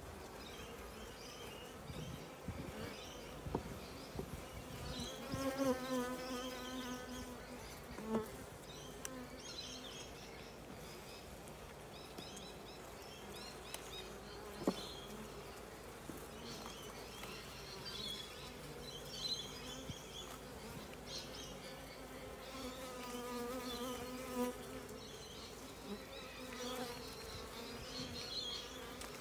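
Honeybees buzzing around an opened hive as a frame is lifted out, with single bees flying close past now and then so the buzz swells louder, most clearly about a quarter of the way in and again near the end. One sharp click about halfway through.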